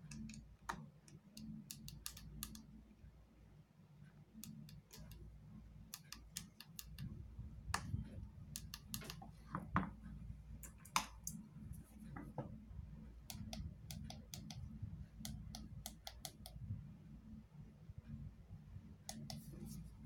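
Light, irregular clicks and taps of a precision screwdriver and small metal parts against an opened iPad 2's metal casing, a few louder ones around the middle, over a faint steady low hum.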